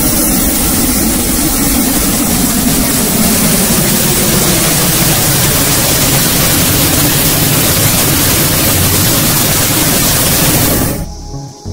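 Hot air balloon propane burner firing in one long, loud, steady roar during inflation, cutting off shortly before the end.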